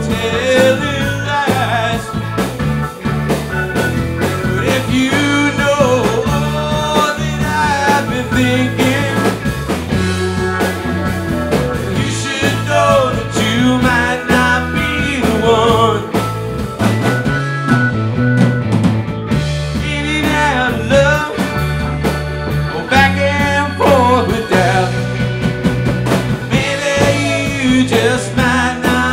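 Live rock band playing: electric guitars with a lead line that bends in pitch, over organ and drums.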